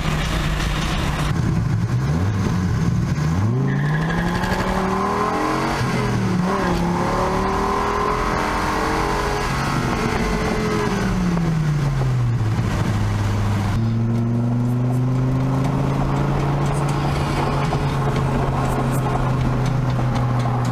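Dodge Viper V10 engine heard from inside the car, accelerating hard with its pitch climbing through the revs. About two-thirds of the way through the pitch falls away, and the engine then runs steady at cruise.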